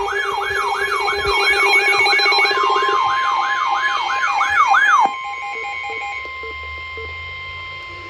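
A layered mix of electronic alarm sounds: a siren-like whoop rising and falling about three times a second over a rapid buzz and several beeping tones. It all cuts off suddenly about five seconds in, leaving a quieter steady electronic tone.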